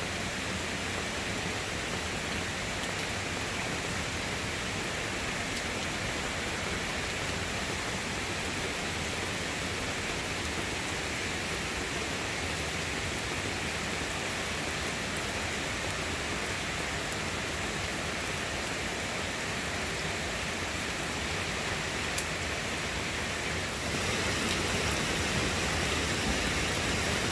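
Steady rain falling, an even hiss that goes on without a break and gets slightly louder near the end.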